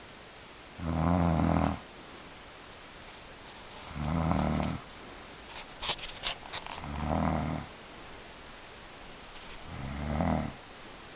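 A woman snoring in her sleep: four rasping snores, about one every three seconds, each under a second long. A few brief clicks come between the second and third snores.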